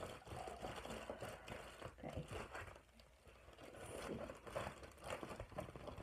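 Crinkling and rustling of a plastic mailer envelope being cut with scissors and pulled open by hand, in an irregular run of short crackles that goes briefly quieter about halfway through.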